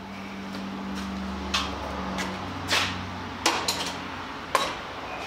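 Four sharp metallic clanks about a second apart, as a steel locking welding clamp and other metal tools are handled and set down. A low steady hum runs underneath.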